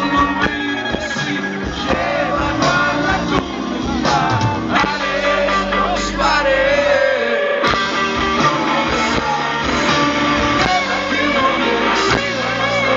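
Rock band playing live: electric guitars, bass guitar and drum kit with a singing voice, steady and loud throughout, heard from among the audience.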